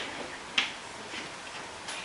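Chalk tapping and scratching on a blackboard as digits are written: a sharp tap at the start and another about half a second in, then fainter strokes.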